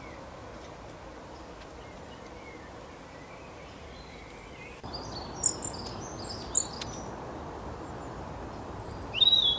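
Steady outdoor background hiss, then after about five seconds a few short, high bird chirps, with a louder burst of chirping calls near the end.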